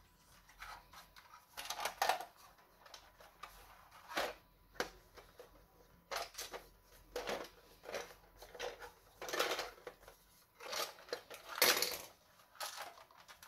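Hard plastic parts of a Bandai space pod model kit being handled: irregular clicks and scrapes as the pod's hinged hatch is swung shut and opened again, with louder clicks about two seconds in and near the end.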